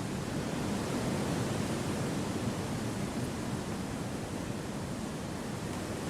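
Wind through forest trees: a steady, even rushing, deepest in the low-middle range, with no gusts or separate sounds.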